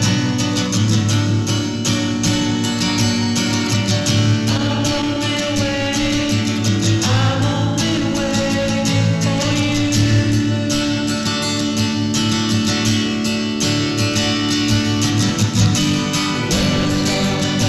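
A song: a singing voice over guitar accompaniment with a steady rhythm.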